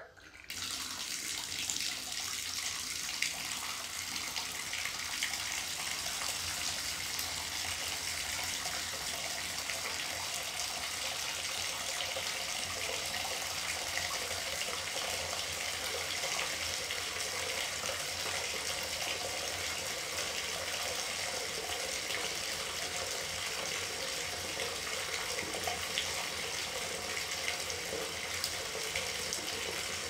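Bathtub tap turned on just at the start, then water pouring steadily from the spout and splashing into the tub as it fills.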